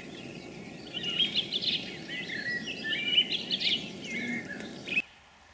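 Small birds singing: a run of varied, quick chirping and warbling phrases over a steady background hiss, ending abruptly about five seconds in, leaving a much quieter background.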